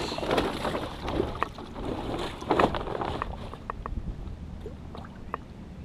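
Irregular knocks, taps and rustles from a kayak angler handling a just-caught small bass and his gear in the boat. The loudest is a cluster of sharp knocks about two and a half seconds in, and it goes quieter near the end.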